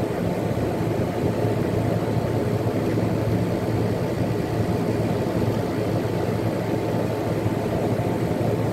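Air conditioner running close to the microphone: a steady fan rush over a low, even hum from the compressor.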